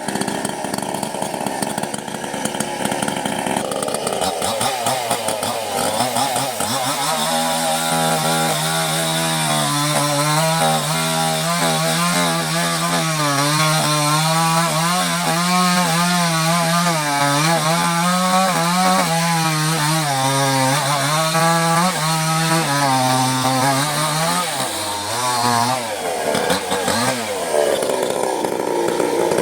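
Small chainsaw running under load as it cuts through mahogany wood, its engine pitch wavering up and down with the bite of the chain. Near the end the pitch drops and comes back up.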